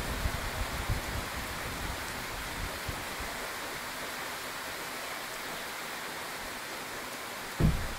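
Steady hiss of rain falling on foliage and ground, with low gusts buffeting the microphone over the first few seconds and a single low thump near the end.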